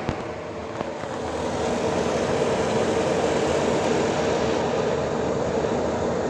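Fasco ceiling exhaust fan running: a steady rush of air with a hum, growing louder over the first couple of seconds and then holding steady.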